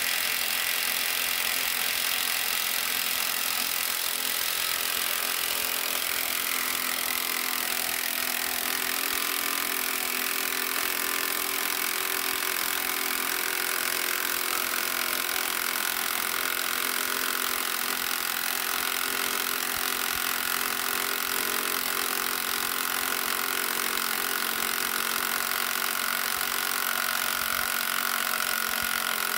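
Power tool running steadily on a deep socket, spinning a rusty nut off the top mounting stud of a trailer's air spring (air bag).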